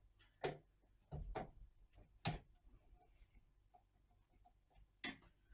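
A few sharp clicks and light taps from a small screwdriver being handled and fitted to a control knob's set screw, spaced irregularly over several seconds.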